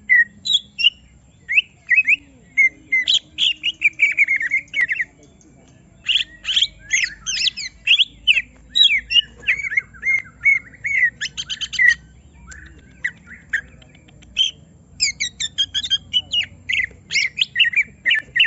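Cucak ijo (greater green leafbird) singing agitatedly: fast runs of varied sliding whistles and chattering notes, twice broken by a short pause and by quick rattling bursts. This is the roused 'emosi' song of a bird provoked by a rival.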